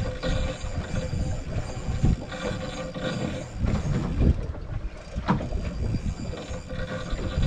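Big-game fishing reel paying out braided line as a balloon float carries the bait away, with mechanical ticking over a constant rumble of wind and sea. A few sharp knocks come about two, four and five seconds in.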